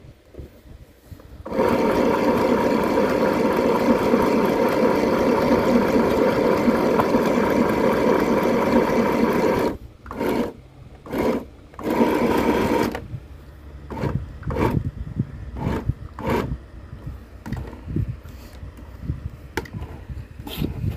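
SewMighty mini sewing machine stitching at a steady speed for about eight seconds, then stopping and starting in three short bursts of stitching, followed by fainter scattered sounds.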